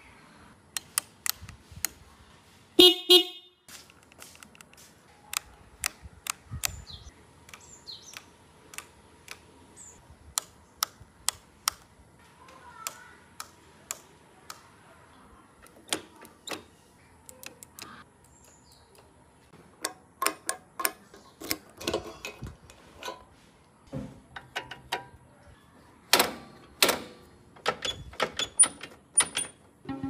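Benda BD 250's horn sounds once, a short loud beep about three seconds in. Many sharp clicks follow, from handlebar switches being pressed and flicked.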